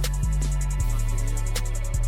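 Hip hop background music: heavy sustained bass notes, snare hits and fast hi-hat ticks in a steady beat.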